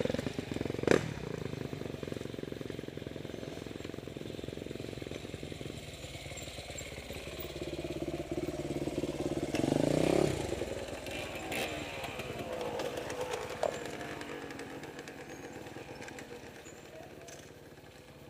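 Motorcycle engine running with shifting pitch, briefly revving up and dropping back near the middle, then fading away toward the end. A sharp knock is heard about a second in.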